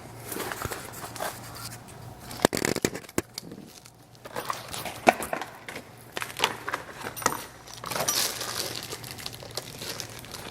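Irregular clicks, clinks and knocks of a socket wrench and metal parts being handled while unbolting a motorcycle's stock horn, with a few sharper knocks and some scraping and rustling.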